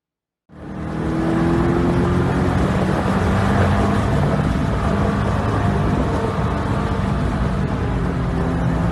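2012 Corvette Grand Sport's 6.2-litre V8 running hard at speed on a track, starting about half a second in. The engine note holds fairly steady, with tyre and wind noise beneath it.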